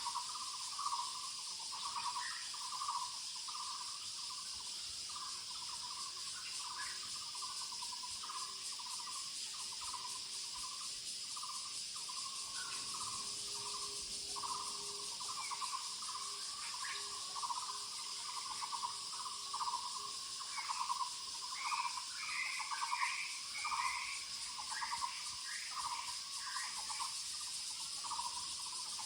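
Muller's barbet (Taiwan barbet) calling: a long series of low, trilled notes, about two a second, with higher notes joining in for a few seconds past the middle. Insects keep up a steady high hiss behind it.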